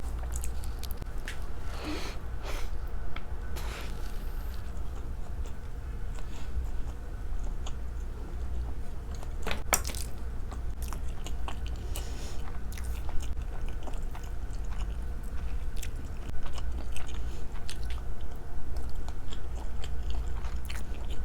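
Close-miked mouth sounds of a person eating sushi cake: wet chewing and biting with scattered sharp clicks, the sharpest about ten seconds in. A steady low hum runs underneath.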